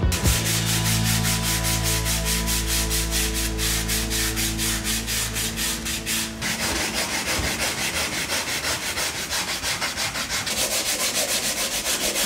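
Hand sanding on a fiberglass car body, a quick regular rhythm of back-and-forth rasping strokes. A low steady hum lies under the first half and stops about halfway through.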